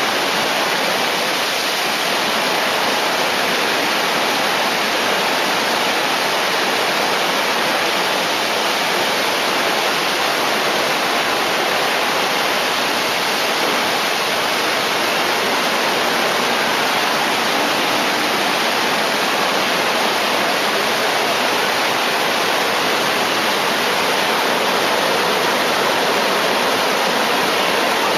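The Eisbach river's standing wave: fast water pouring over a ledge and breaking into white water, a loud steady rush that never lets up.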